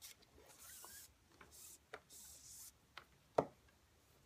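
Cord being drawn through the woven strands of a knot on a mandrel: three short rubbing hisses, then a few light clicks, the loudest about three and a half seconds in.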